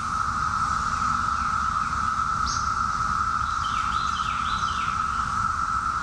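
Chorus of 17-year periodical cicadas: a steady, unbroken drone at one pitch, with birds chirping over it, several short falling calls in the middle.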